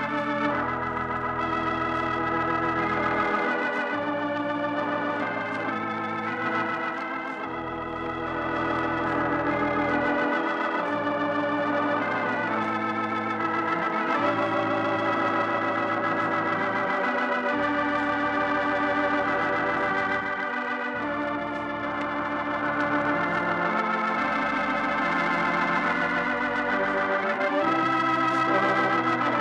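Organ music: slow, sustained chords over bass notes held two or three seconds at a time, with short breaks between them.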